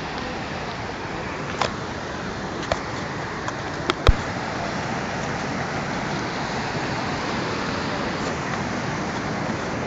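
Steady rushing of a river in flood, with a few sharp knocks, the loudest about four seconds in.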